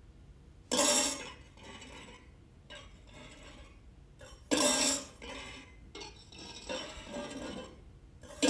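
Electric violin bowed with harsh, scratchy strokes: two sudden loud attacks about four seconds apart, each dying away within half a second, with quieter uneven bow sounds between.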